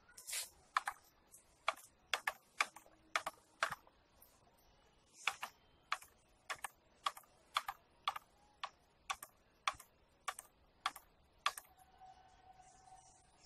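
Footsteps slapping on a concrete floor, a sharp click roughly every half second, stopping about a second before the end.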